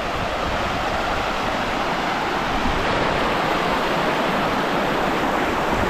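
Shallow river water rushing over rocks in rapids: a steady, even rush with no let-up.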